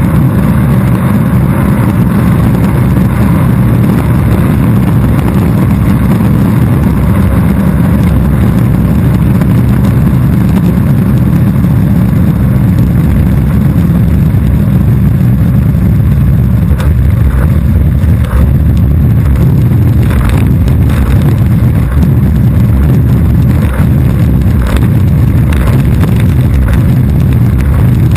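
Longboard wheels rolling on asphalt, heard right beside the wheels: a loud, steady rumble, with a scattering of sharp knocks in the second half.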